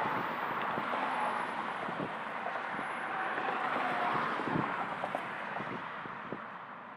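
Road traffic at night: a steady wash of car and tyre noise with a couple of cars passing, fading slowly away near the end.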